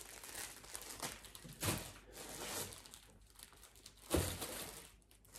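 Rustling and crinkling as yarn cakes are handled and sorted, with two soft thumps: one about one and a half seconds in, another about four seconds in.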